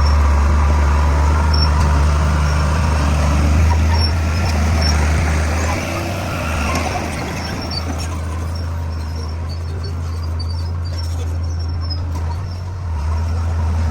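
Bulldozer's diesel engine running with a deep steady drone, easing off about six seconds in and rising again near the end, with faint high squeaks now and then.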